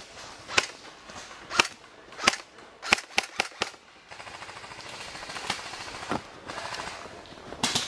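Airsoft guns firing: sharp single shots about once a second, a quick string of shots about three seconds in, then scattered shots and a close pair near the end.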